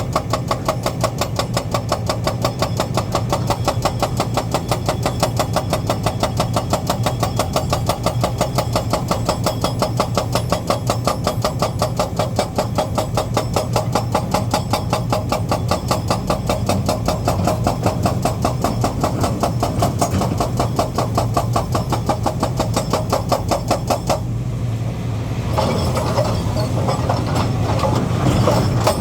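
Diesel engine of heavy earthmoving machinery running with a steady, rapid, even beat. About 24 seconds in the sound changes, growing busier and slightly louder toward the end.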